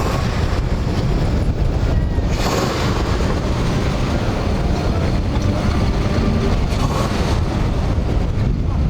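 Wind rumbling on the microphone, with vehicle engines running in the background.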